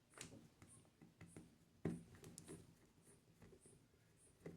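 Faint scattered clicks and scrapes of screws and a small screwdriver being handled against a Bluetooth speaker's plastic case as it is screwed back together, with a slightly sharper click about two seconds in.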